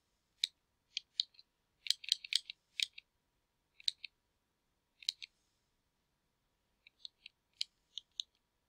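Computer mouse clicking while a page is scrolled down: short, sharp, light clicks in irregular runs, with pauses of a second or more between the runs.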